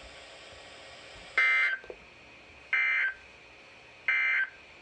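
NOAA Weather Radio SAME end-of-message data bursts: three short buzzy digital bursts about 1.3 seconds apart over faint radio background, marking the end of a flood warning broadcast.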